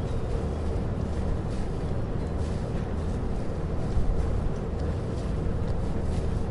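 Boat engine running steadily with a low drone, amid harbor ambience with faint scattered knocks.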